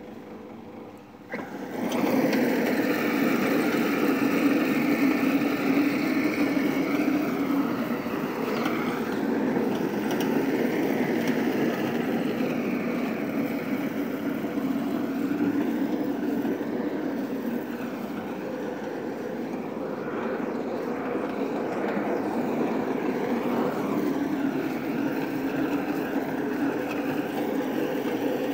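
Electric cylinder lawn mower's motor starting up suddenly about two seconds in, then running steadily as the mower is pushed across the grass.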